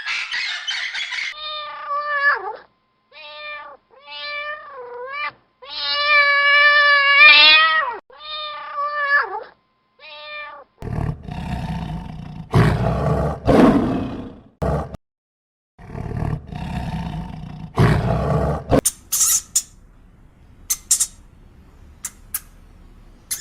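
Animal calls in sequence: first a run of short, pitched, meow-like cries, some bending up or down in pitch, then several loud, deep, rough growling roars, then short high squeaks and clicks.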